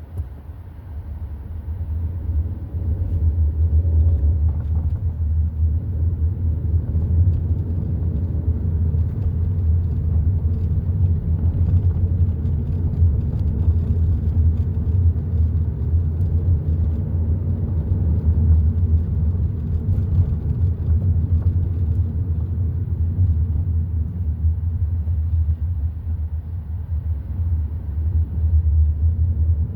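Hyundai i30 N Line car driving, a steady low rumble of engine and road noise that grows louder over the first few seconds and then holds steady.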